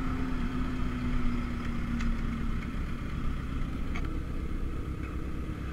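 Sport bike riding along, heard from an onboard camera: a steady engine note that fades out about halfway through, over heavy wind rumble on the microphone.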